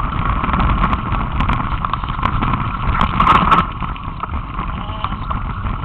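Mountain bike rolling along a trail: steady wind rumble on the microphone with the rattle of the bike and tyres over the trail surface, and a louder clatter about three seconds in.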